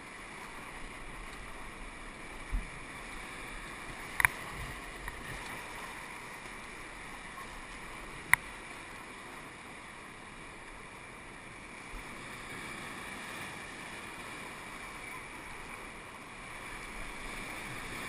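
Whitewater rapids rushing steadily around a paddle raft, with two sharp knocks about four and eight seconds in.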